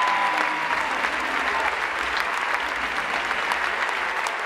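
Audience applauding: a large crowd clapping steadily.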